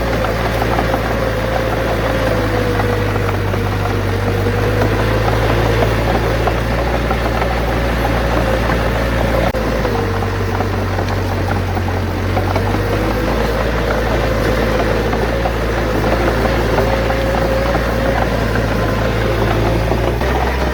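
Heavy diesel engine of earth-moving machinery running steadily, with a whining tone that dips and rises in pitch and a continuous rattle.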